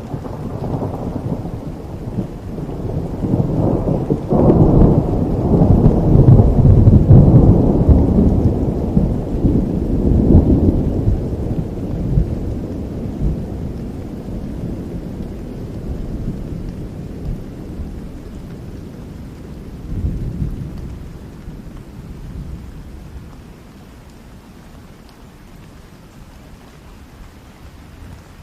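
A long, low roll of thunder that builds to its loudest a few seconds in, then slowly dies away, with a smaller rumble near the end, over steady rain falling in a forest.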